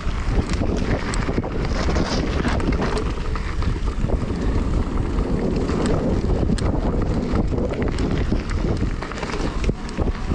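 Wind buffeting the microphone over mountain-bike tyres rolling fast on a dirt trail, with frequent small knocks and clicks from the bike going over bumps.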